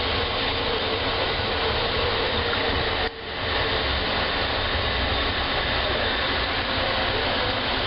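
AirTrain JFK car running along its elevated guideway, heard from inside as a steady running rumble and hiss with a faint held hum. The sound drops out briefly about three seconds in, then carries on as before.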